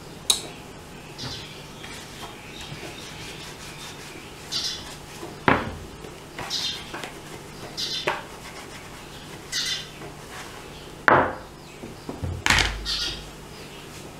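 Plastic food containers and lids being handled on a table: several sharp clicks and knocks, the loudest near the end, with rubbing between them.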